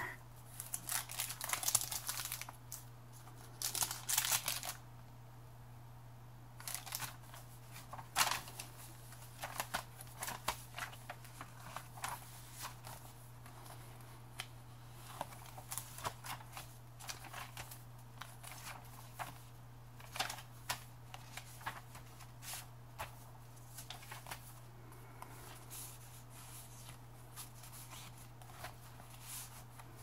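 Paper rustling as the thick, layered pages of a handmade junk journal are turned and its tags and inserts handled: soft crinkles and taps, busiest in the first few seconds, then scattered.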